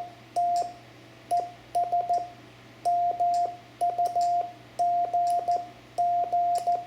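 Morse code sent in CW as a single steady tone of about 700 Hz, keyed into short dits and longer dahs in letter groups with brief gaps, spelling out part of a weather report ("hot and muggy").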